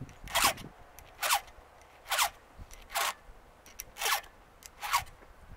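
A file rasping across the cutters of a chainsaw chain as the teeth are sharpened by hand: six short, even strokes, about one a second.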